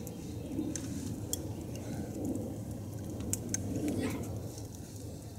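Campfire crackling: a few sharp, scattered ticks and pops over a steady low rumble.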